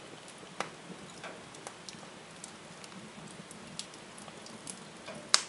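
Wood fire crackling in a fireplace, with scattered irregular pops; the loudest pop comes near the end.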